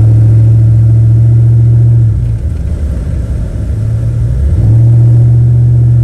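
2000 GMC Sierra 1500 pickup heard from inside the cab while driving on snowy roads: a loud, steady low drone. It falls away about two seconds in and comes back about four and a half seconds in.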